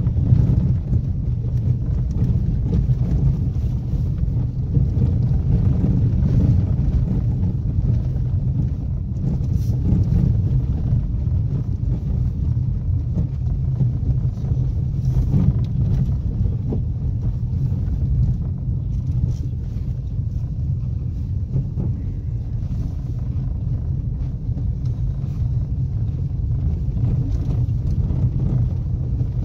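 Car driving on a rough dirt track, heard from inside the cabin: a steady low rumble of engine and tyres on the uneven ground, with a few brief knocks.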